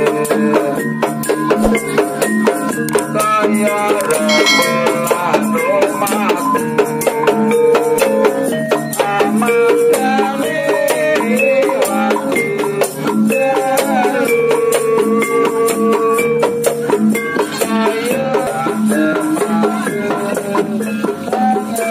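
Traditional Javanese ensemble music: frame drums and metallophones with a rattling percussion keeping a steady, even beat under a sung melody.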